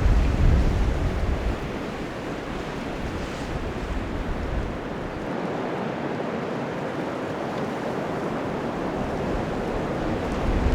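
Wind blowing in a snowstorm, a steady rushing with low gusts buffeting the microphone in the first second or two.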